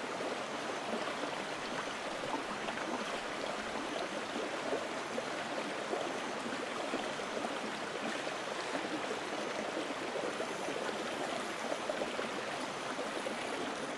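Steady sound of running water, an even rushing that does not let up.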